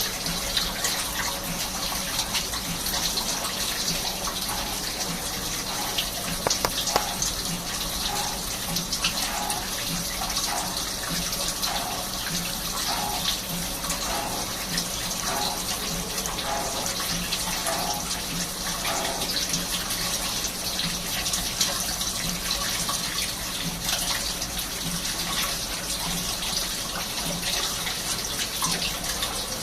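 Swiss-type CNC lathe machining a bone screw, with a steady hiss of cutting fluid spraying over the work. For about ten seconds in the middle a short tone repeats roughly once a second.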